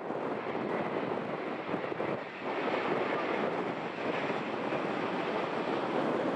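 Boeing 787-8 Dreamliner's jet engines on final approach, a steady rushing jet noise that grows a little louder about halfway through, mixed with gusty wind on the microphone.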